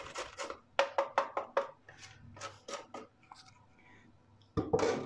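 A carrot being grated on a metal box grater: a run of quick rasping strokes, about five a second at their fastest, that stops about three seconds in. A louder knock near the end.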